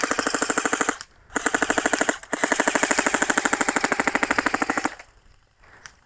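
Automatic airsoft gun firing on full-auto close by: three long bursts of rapid, evenly spaced shots, the last about two and a half seconds long, stopping about five seconds in.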